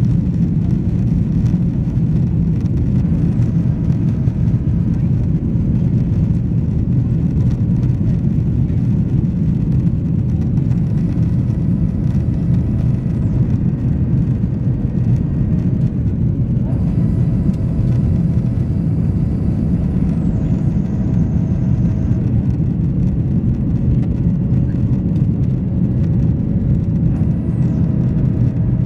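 Cabin noise of a Boeing 737-800 climbing after takeoff, heard at a window seat over the wing: a steady, loud CFM56-7B engine and airflow rumble. A faint high whine comes in a few times and drops in pitch.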